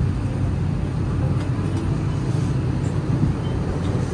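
Steady low rumble of an Airbus A320's cabin air system in the emptied cabin, with a few faint clicks.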